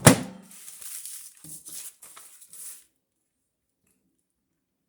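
A sharp clunk as the microwave oven is loaded and shut, followed by a couple of seconds of light handling noise. About three seconds in, the sound cuts out to dead silence.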